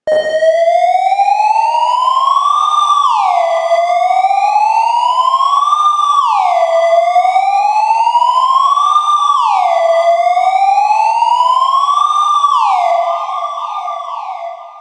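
Synthesizer imitating a police siren's wail: an arpeggiated tone gliding slowly up over about two seconds, then dropping quickly, five times over, with delay echoes and reverb trailing each fall. It fades out near the end.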